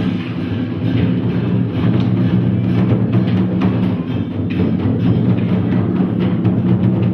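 Temple ritual percussion: irregular drum and wood-block-like strikes over a steady low drone.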